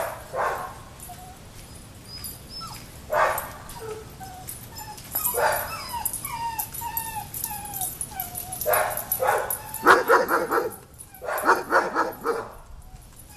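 Cockapoo barking in short bursts, with high whining yelps between the barks and a quick run of barks near the end.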